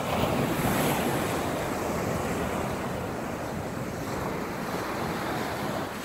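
Ocean surf breaking and washing up a sandy beach: a steady rushing that swells about a second in and then slowly eases.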